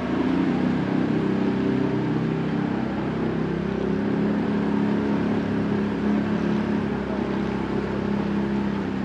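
Small wooden tour boat's engine running steadily under way, a constant low drone.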